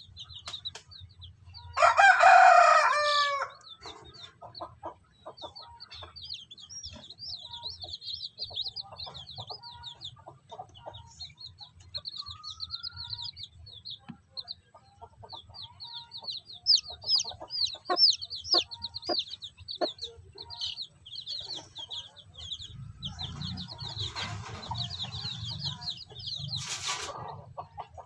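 Newly hatched native chicks peeping over and over in high, short notes, with a broody hen clucking softly at intervals. A rooster crows loudly about two seconds in, and a short loud hen call comes near the end.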